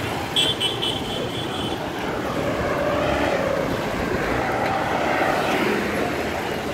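Roadside traffic: motorcycles and a minibus passing close by with engine and road noise, the engine sound swelling in the middle. About half a second in comes a quick run of several short, high-pitched beeps.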